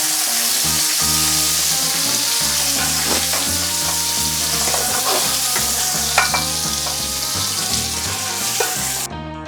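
Shell-on king prawns sizzling in oil in a hot wok, a dense steady sizzle at the end of cooking as the shells begin to char. The sizzle cuts off abruptly about nine seconds in.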